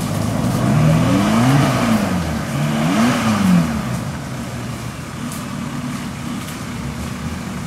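Isuzu Trooper 4x4's engine revving up and dropping back twice in quick succession as it crawls over rough trail, then running steadily at lower revs.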